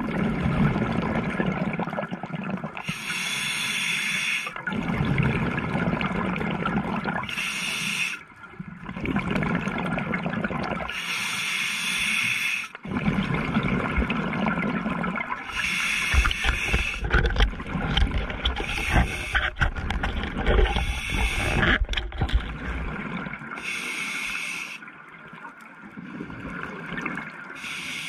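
Scuba diver breathing through a regulator: a hissing draw on each inhale alternating with a rush of exhaust bubbles on each exhale, a breath about every four seconds.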